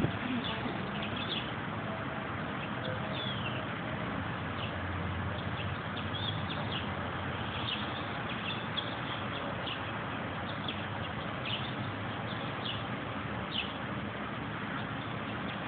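Small birds chirping in short, scattered calls over steady background noise.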